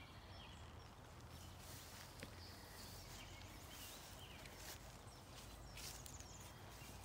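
Faint, short, high peeps of ducklings, repeated many times, over a low steady rumble.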